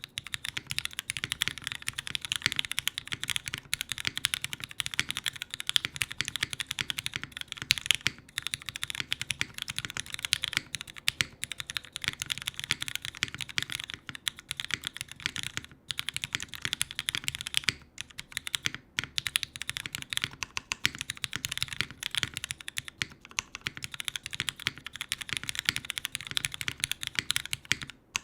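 Fast, continuous typing on a Kypseli TKL custom mechanical keyboard: lubed Cherry MX Black linear switches on a full aluminium plate with GMK ABS keycaps, a dense run of key clacks broken by a few brief pauses.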